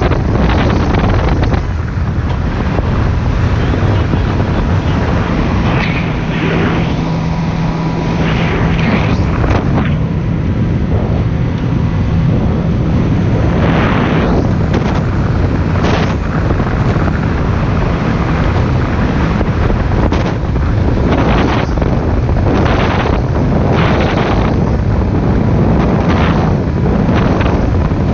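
Speedboat under way at speed: heavy wind buffeting the microphone over the steady drone of the boat's engine, with the hull hitting waves now and then.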